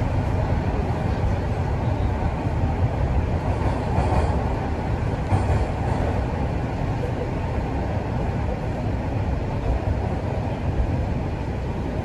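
Toronto Rocket subway train running between stations, heard from inside the car: a steady rumble of wheels on rails with running noise, slightly quieter near the end.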